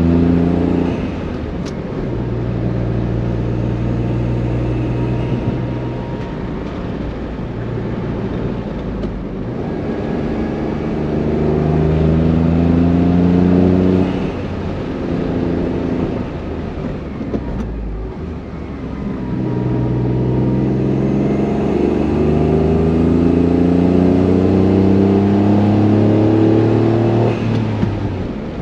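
Honda S660's small turbocharged three-cylinder engine and exhaust pulling hard uphill, the pitch climbing steadily in three long runs, each one dropping away abruptly before the engine picks up again.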